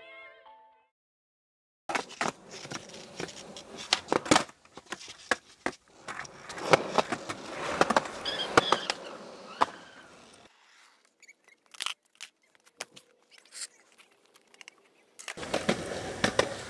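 Skateboard wheels rolling on smooth concrete, with sharp clacks of the board being popped and landing. It starts after about two seconds of silence and thins to a few scattered clacks in the second half.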